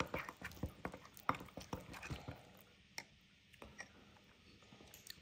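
Metal spoon stirring a thick spice paste in a ceramic bowl: soft, quick clinks and scrapes against the bowl that stop about halfway through, then only a couple of faint ticks.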